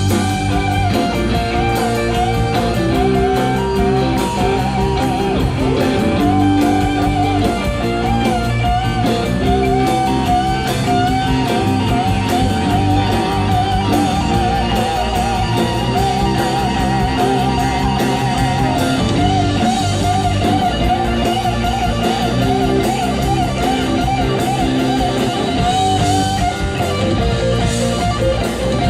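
Rock band playing live: a sustained electric lead guitar line with wide vibrato and bends over rhythm guitar, bass and drums.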